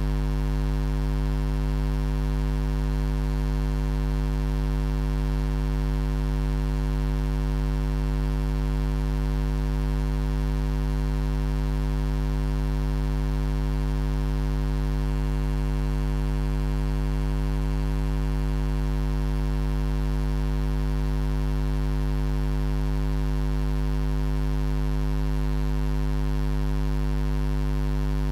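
A steady, low electrical hum with a buzz above it, unchanging in pitch and level throughout.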